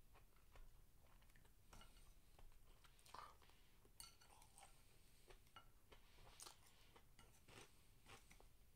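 Faint chewing of cubed steak and rice, with scattered soft clicks of chopsticks against the plate and rice bowl, one sharper click about four seconds in.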